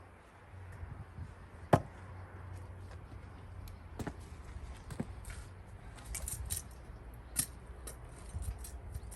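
A single sharp crack of a Gränsfors Bruks axe striking a cherry log, about two seconds in, followed by a few lighter knocks and scattered high ticks.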